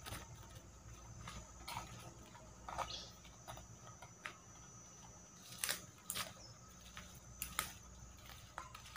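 Caged decoy bulbul giving short, sharp chips and clicks, about a dozen scattered at irregular intervals, some with a quick rising pitch.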